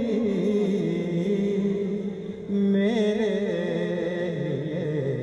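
A man's voice reciting Urdu verse in a sung, chanting melody, drawing out the words into long held notes. A louder phrase comes in about halfway through.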